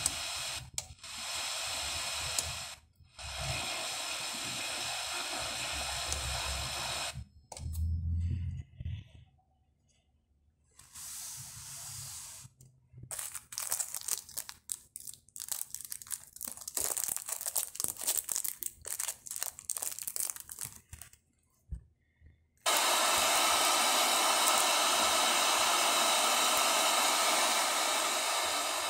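Car stereo's FM radio hissing with static between stations while it is tuned and switched between presets, cutting out abruptly several times as it mutes on each change. A crackly, broken stretch in the middle; near the end a louder steady static hiss.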